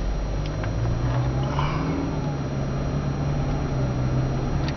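A car's cabin noise while driving: a steady low hum of engine and tyres on the road.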